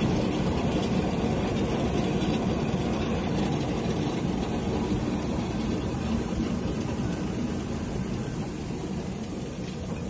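Small open cable-car cabin running along its overhead cable: a steady, low noise that fades slightly near the end.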